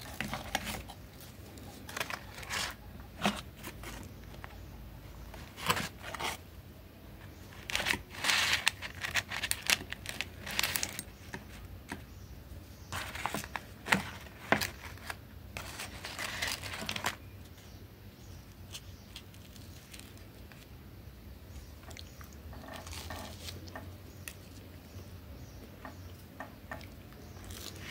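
Plastic bag crinkling and a table knife scraping soft butter onto toasted bread, in irregular rustles and scrapes that die down over the last ten seconds or so.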